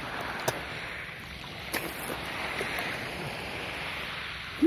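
Sea water lapping and sloshing around a swimmer at the surface, a steady watery hiss with a couple of short sharp clicks about half a second in and near the two-second mark.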